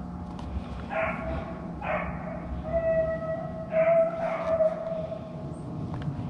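Beagles baying while hunting a rabbit's trail: a few short barks, then a long drawn-out bay about halfway through.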